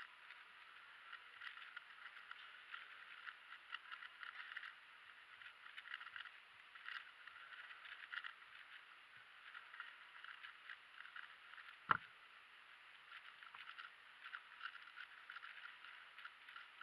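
Rapid, faint clicking and clacking of a MoFangGe QiYi WuQue stickerless 4x4 speedcube's layers being turned in quick succession during a solve. One sharp knock stands out about two-thirds of the way through.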